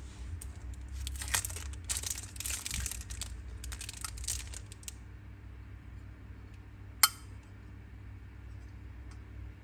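Metal Zippo lighters and cases clinking and clicking as they are handled, followed about seven seconds in by a single sharp metallic click.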